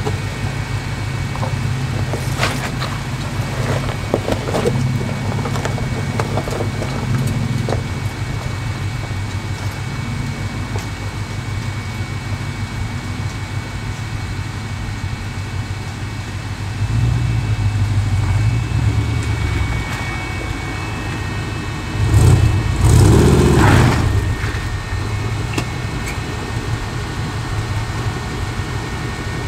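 Off-road 4x4 trucks crawling over rocks: an engine running low and steady, with rocks knocking and crunching under the tyres early on, and two louder surges of revving in the second half as the Toyota Land Cruiser climbs the trail.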